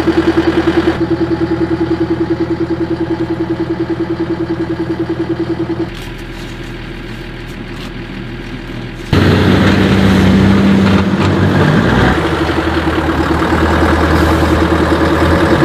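Military 4x4 vehicle engine idling with an even, pulsing beat. About six seconds in it drops to a quieter hum for a few seconds, then comes back louder and rougher.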